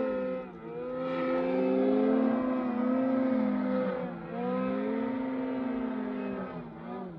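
Snowmobile engine running at speed, its pitch dipping and climbing back twice as the throttle is eased and reopened, then falling away near the end as the sound fades.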